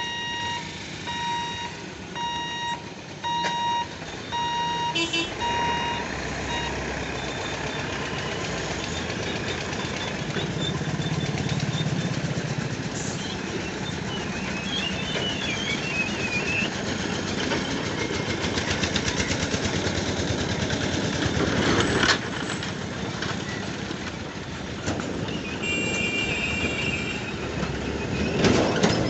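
Electronic beeping, repeating evenly for the first six seconds or so, then trucks, an auto-rickshaw and motorcycles driving over a level crossing, engines running steadily. Twice there is a sharp knock as wheels bump over the rails.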